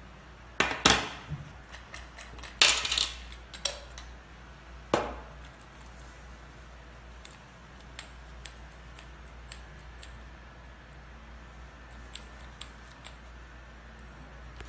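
Hard plastic parts of an air-line water separator being handled and set down on a glass tabletop: a few sharp knocks and clatters in the first five seconds, then only small clicks.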